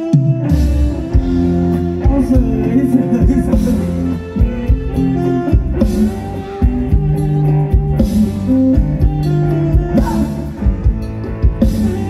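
Live band playing upbeat Thai ramwong dance music: a steady drum beat, bass line and melody instruments, with singing.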